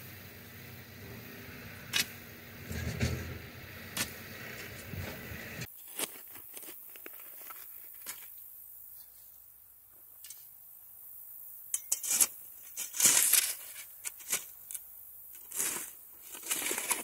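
A steel digging bar jabbed into hard, stony soil at the bottom of a narrow hole, striking sharply about every two seconds. Later, a shovel scraping and scooping dirt and stones in a trench, several strokes in the last five seconds.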